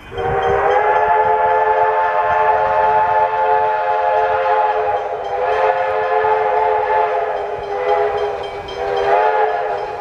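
Train whistle sounding one long, steady chord of several notes, starting abruptly with a slight dip in loudness about five seconds in and again near the end.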